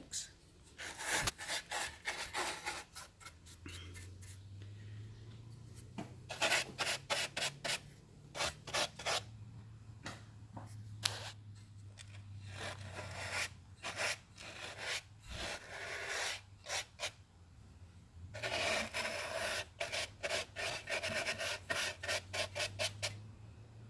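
Brush strokes scrubbing dust and grime off an old loudspeaker: quick runs of short scratchy rubs with pauses between them. A faint low hum sits underneath from a few seconds in.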